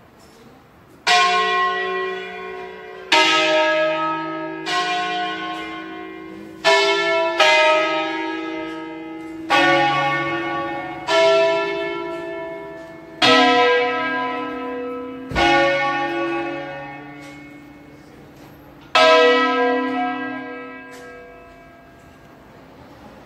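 Church bells of a five-bell Lombard concerto tuned in B, struck one after another in a slow, irregular melodic sequence. Each stroke rings out and fades slowly, about ten strokes in all, with a longer pause before the last, which is left to die away near the end.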